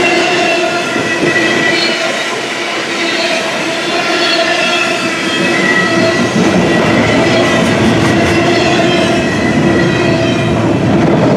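Double-stack intermodal container cars rolling past at speed, their steel wheels clattering over the rail joints with a steady, wavering squeal from the wheels.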